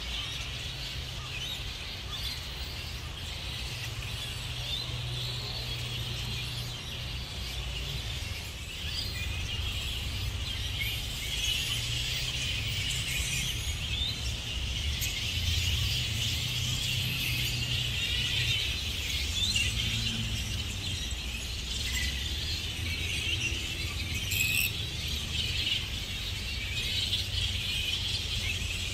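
A roosting colony of grey-headed flying foxes calling: a dense, continuous chorus of many overlapping high-pitched squeaks and chatter, over a steady low rumble.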